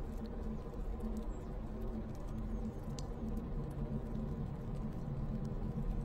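Dark ambient horror drone: a steady low rumble with a dense hum underneath, and a few faint, scattered ticks.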